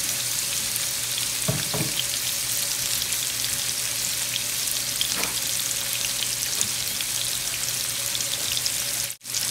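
Chopped bacon frying in hot oil in a nonstick skillet: a steady sizzle with many small scattered crackles. The sound cuts out for a moment near the end.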